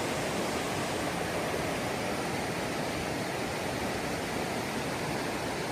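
River water running, a steady, even rush of noise.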